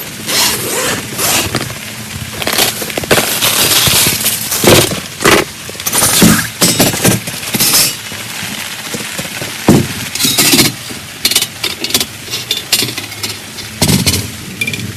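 Irregular rustling, clicking and clattering of camping gear being handled, over a steady hiss.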